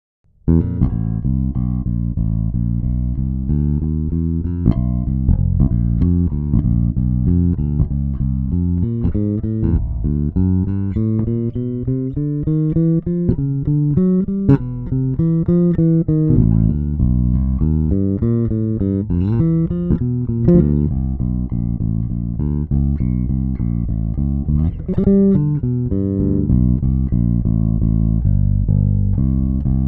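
Carvin JB5 five-string jazz bass played solo with the fingers: a flowing line of low notes with rising and falling runs and a few sharp plucked accents. It starts about half a second in.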